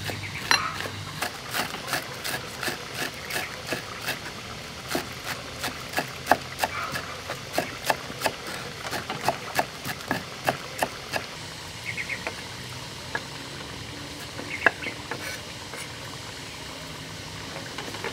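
Cleaver chopping spring onions on a round wooden chopping board, a steady run of knocks about three a second that stops about eleven seconds in, followed by a few scattered clicks.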